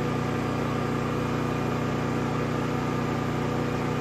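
Generator engine running steadily, an even drone with no change in speed.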